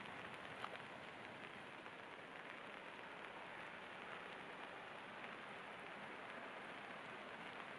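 Steady rain falling, an even hiss with scattered drops ticking, one a little sharper near the start.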